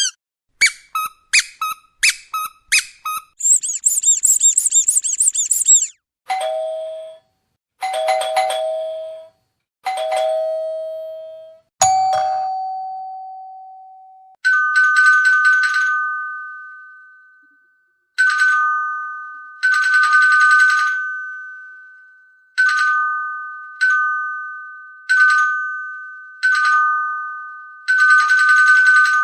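A run of sound effects: quick high chirps, a shrill warbling whistle, then two-note ding-dong chimes. From about halfway through, a two-tone electronic doorbell chime repeats about eight times.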